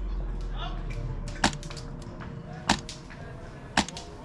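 An airsoft gun fires three single shots, each a short, sharp pop, spaced a little over a second apart.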